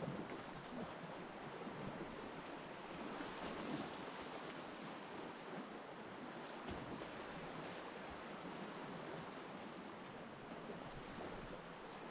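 River water rushing over a shallow, rocky whitewater rapid: a steady rushing hiss heard close to the water from a kayak.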